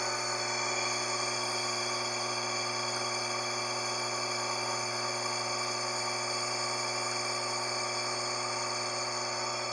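Electric motor running unloaded with its drive belt removed, a steady noise with many constant tones from a worn bearing.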